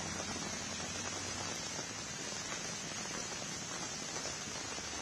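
Heavy rain pouring onto a flooded road, a steady, even hiss.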